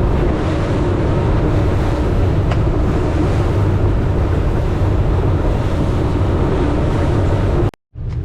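Boat engine running under way, with wind blowing across the microphone and water rushing past the hull. The sound cuts off suddenly near the end.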